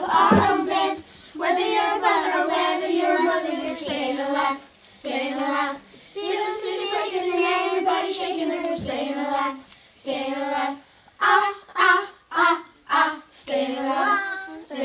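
Children singing a song together, holding long notes in phrases; near the end the notes turn short and separate.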